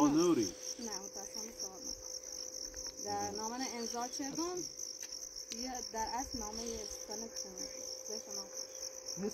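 Crickets chirping in a steady, evenly pulsing high trill, with quiet voices of people talking now and then.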